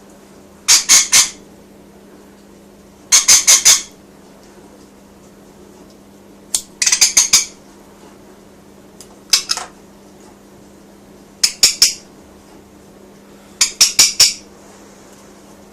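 Rainbow lorikeet screeching in six loud bursts, each a quick run of three to five shrill squawks, about two seconds apart.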